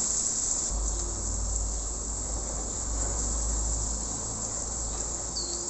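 Steady high sizzling of diced potatoes, green peas and sliced bitter gourd frying in oil in two pans, with a low hum from about a second in until near the end.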